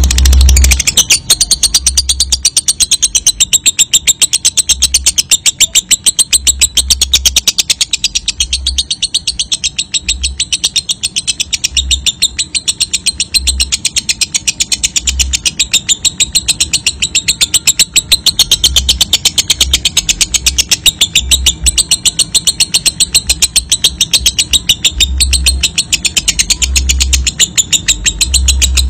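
Fischer's lovebird singing a long, unbroken 'ngekek': a shrill, rapid chatter of many sharp notes a second, held without pause.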